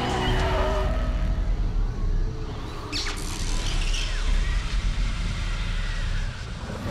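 Animated race-car sound effects: a deep, steady engine rumble as the cars speed along the track, with a couple of quick high swishes about three seconds in.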